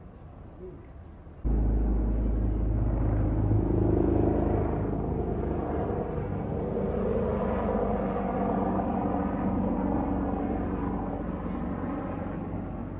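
Helicopter flying overhead: a steady, low rotor drone that starts abruptly about a second and a half in and slowly fades.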